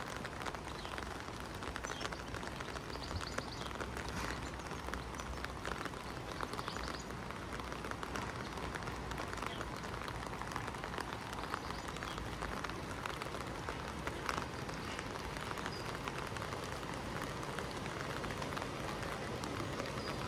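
Steady rain falling, a continuous hiss dotted with many small drop ticks, over a low rumble.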